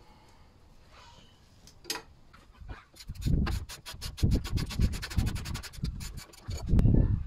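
Socket ratchet clicking in quick, even runs from about three seconds in as a bolt is wound, with low thumps of handling underneath.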